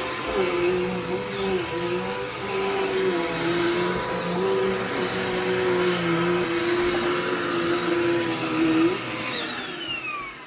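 Vacuum cleaner motor running with a steady whirring hum whose pitch wavers a little, then switched off about nine seconds in, its pitch falling as the motor spins down.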